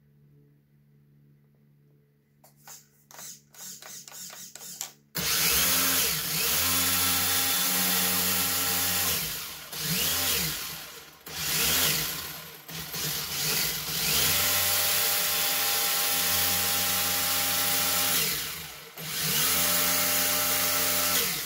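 Himoto RC rally car's brushless motor (9T, 4700kv) and 4WD drivetrain revved in place: a few short throttle blips, then about five seconds in a loud high whine at full throttle, held for several seconds at a time with quick drops and climbs in pitch in between.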